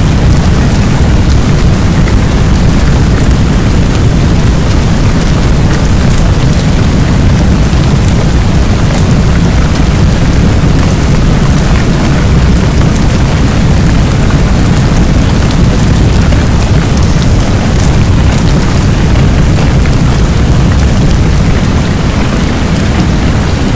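Steady heavy rain with a deep low rumble underneath, a loud continuous wash of noise with no breaks.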